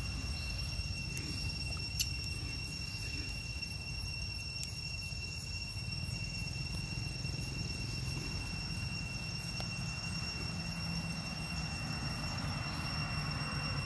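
Outdoor background noise: a constant high-pitched whine and a low rumble, with one sharp click about two seconds in.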